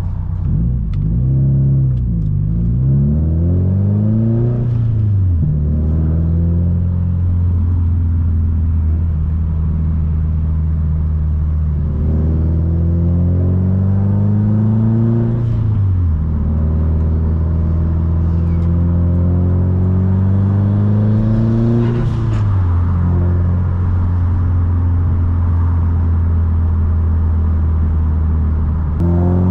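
Subaru WRX STI's turbocharged flat-four engine pulling under acceleration. Its pitch climbs and then drops quickly three times, with steadier cruising between.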